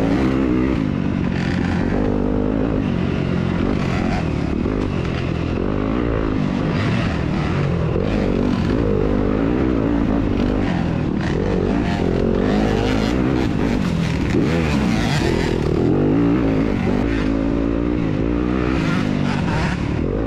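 2021 Yamaha YZ250FX's single-cylinder four-stroke engine, heard from on board while ridden hard along a dirt trail, its pitch rising and falling over and over as the rider works the throttle and gears.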